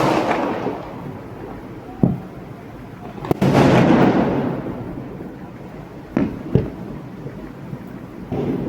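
Diwali fireworks and firecrackers bursting over a city: a sharp bang at the start, more at about two and three seconds in, and two close together around six seconds, each trailing off in a long rumbling echo.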